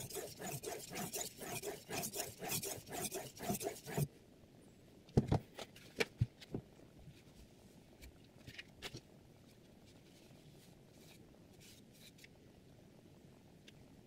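A steel chef's knife scraped back and forth along a water whetstone, sped up, at about four even strokes a second; it stops suddenly about four seconds in. A few sharp knocks follow, then only faint light ticks of handling.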